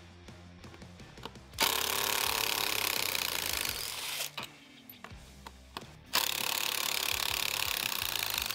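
Cordless drill turning a T25 Torx bit to back out speaker mounting screws. It runs in two bursts of about two and a half seconds each.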